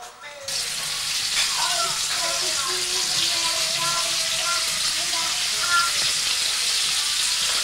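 Food frying in a pan: a steady sizzle that starts abruptly about half a second in.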